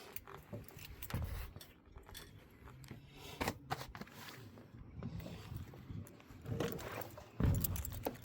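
Irregular scrapes, clicks and light knocks of hands and feet working in an excavator's service compartment, with a heavier thump near the end.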